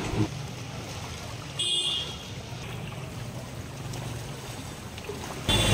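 Shallow floodwater sloshing and washing as people wade through it. There is a brief high tone about a second and a half in, and a louder low hum comes in near the end.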